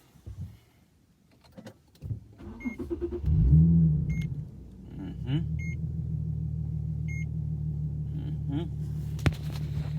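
Infiniti G37's 3.7-litre V6 started up about two seconds in, flaring briefly in revs before settling into a steady idle. The dashboard warning chime beeps about every second and a half, and there is a sharp click near the end.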